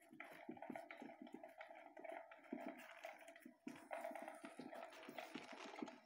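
Electronic cat toy running: its motor hums steadily under the fabric cover while the moving wand and the cat's paws rustle and scratch at the cloth in quick, irregular clicks.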